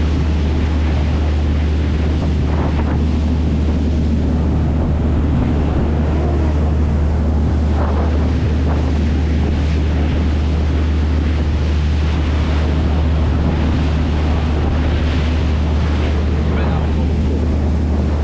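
Tour boat's engine droning steadily at cruising speed, with wind rushing over the microphone and water noise along the hull.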